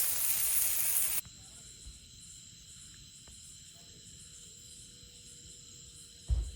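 Loud sizzling of fish cooking over a campfire, cut off abruptly about a second in. Then comes a quieter background of steady, shrill insect calls, with a single low thump near the end.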